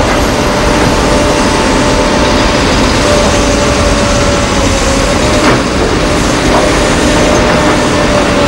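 Heavy diesel construction machinery running steadily: a constant loud engine drone with a steady hum over it, and a couple of faint knocks past the middle.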